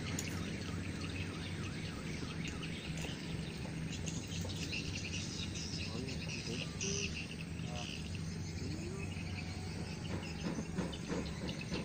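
Rural outdoor ambience: birds chirping and insects calling, over a steady low hum.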